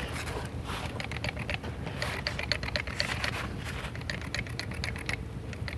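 Manual hand clippers snipping through goat hair: a fast, irregular run of short clicks as the blades are squeezed again and again.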